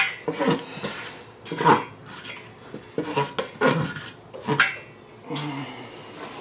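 A spoon scraping and clinking against a stainless steel pot as a thick, dark roux is stirred, in irregular strokes.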